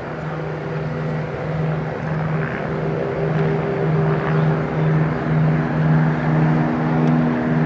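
Airbus A350-900 XWB's twin Rolls-Royce Trent XWB turbofan engines on final approach: a low drone that throbs about twice a second and grows louder as the airliner closes in just before touchdown.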